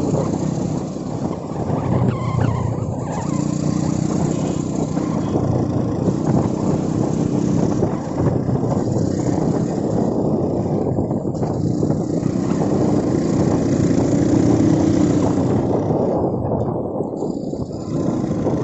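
Motorcycle engine running steadily while riding along, with a mix of road and wind noise.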